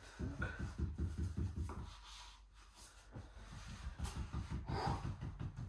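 A man's heavy, effortful breathing and low grunts as he strains to lift himself from a wheelchair onto a bed. The effort comes in two spells with a short lull about two seconds in.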